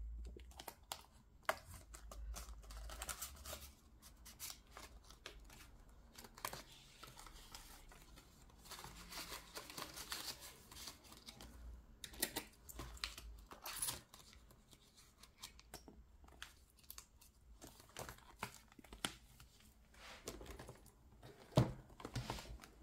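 Faint, close handling of paper and plastic: irregular rustling and crinkling with scattered small clicks and taps, as when banknotes, envelopes and game sheets are being sorted on a table.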